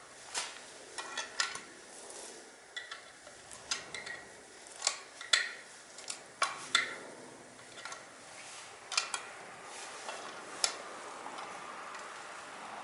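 Metal tools and small metal parts clinking and tapping against each other, a dozen or so sharp, irregular clinks, some with a short ring.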